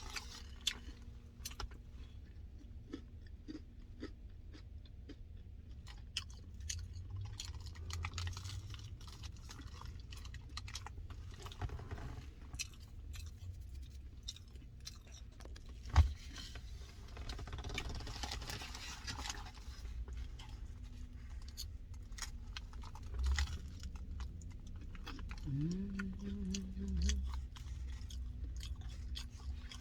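Close-up mouth sounds of chewing a grilled mac and cheese sandwich: steady chewing and biting with small crunches and wet clicks. There is one sharp knock about halfway through.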